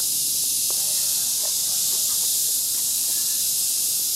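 Cicadas singing in chorus in summer trees: a loud, steady high-pitched hiss that neither rises nor falls.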